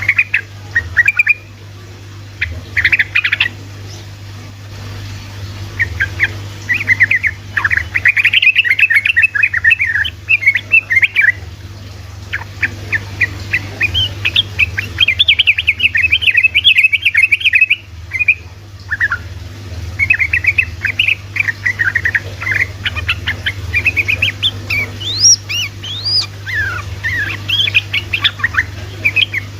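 Yellow-vented bulbul (trucukan) singing its fast rolling 'ropel' chatter: long runs of rapid bubbly notes in phrases broken by short pauses, with a few higher upward notes near the end, over a steady low hum.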